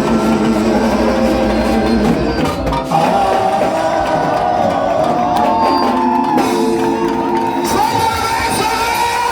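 Live church praise music: singing over drums and instruments, with shouts from the congregation.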